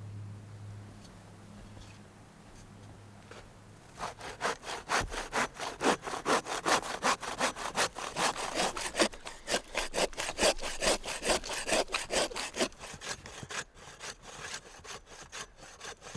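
Handsaw cutting through a log, with rapid, even back-and-forth strokes starting about four seconds in and becoming sparser near the end. A low steady hum comes before the sawing.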